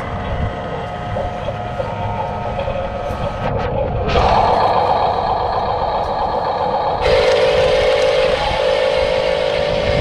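Radio-controlled toy construction truck's electric drive motor and plastic gearbox whining as it drives over packed dirt. The whine changes abruptly about four seconds in and again about seven seconds in.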